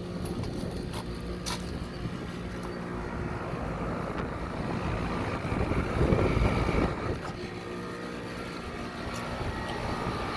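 Rooftop packaged air-conditioning units running, giving a steady hum of compressor and condenser fan. About six seconds in there is a louder rush of air for about a second, close to a spinning condenser fan.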